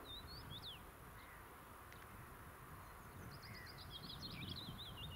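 Small songbirds chirping, with a few short calls near the start and a rapid, warbling trill from about three seconds in, over a faint low background rumble.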